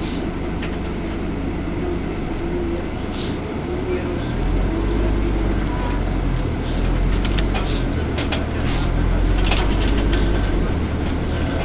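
Scania CN280UB city bus heard from inside the passenger cabin, its engine running steadily, then pulling harder and louder about four and a half seconds in as the bus picks up speed. Short clicks and rattles from the cabin come through in the second half.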